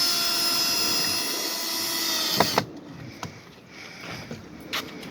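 Power drill driving a screw to lock a brace to the column, its motor running at a steady whine and stopping about halfway through, followed by a few light clicks and knocks.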